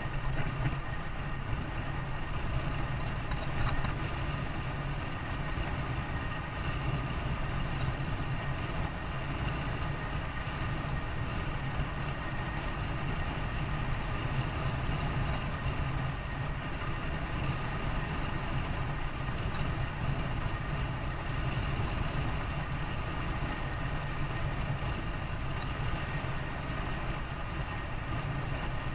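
Steady running noise of a motor vehicle: an unbroken low rumble with faint, steady higher tones that does not change.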